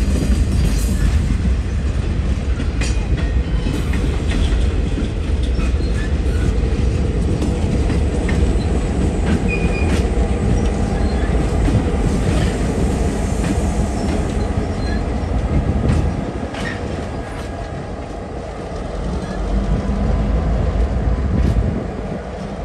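A slow freight train of covered container cars rolling past, pushed by two BNSF diesel locomotives: a steady, heavy diesel rumble with wheels clicking and clattering over the rail joints. The rumble eases about two-thirds of the way through and then rises again briefly.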